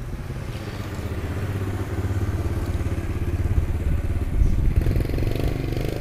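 A small engine running close by with a fast, even pulse, getting louder over the first few seconds.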